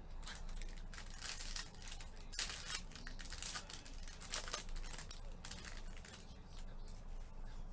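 Foil wrapper on a trading-card pack being crinkled and torn open by gloved hands, a run of irregular rustles and tears.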